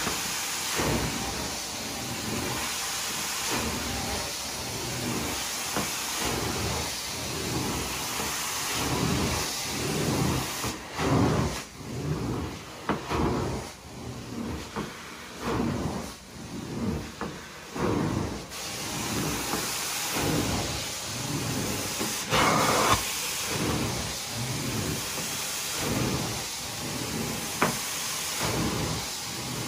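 Carpet extractor wand sucking water out of carpet: a steady vacuum hiss that swells and fades about once a second as the wand is worked back and forth. The hiss drops lower for several seconds midway.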